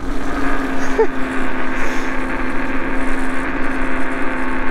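iSinwheel GT2 electric scooter ridden at speed on a paved path: its 800 W motor whines steadily on one pitch over a rush of tyre and wind noise.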